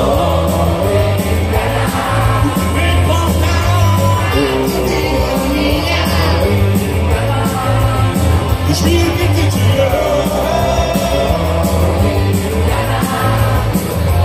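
Live rock band playing through a concert PA, with a steady bass-and-drum beat and singing over it.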